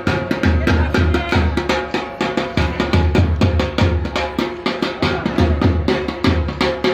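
Music for a Gujarati raas folk dance: a drum beating heavy strokes in short groups over a fast, even run of sharp clicks, with a steady held tone above.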